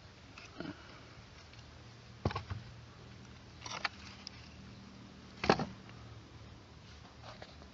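A few short, sharp knocks and scrapes, the loudest about five and a half seconds in, over a faint low steady hum that starts about a second and a half in.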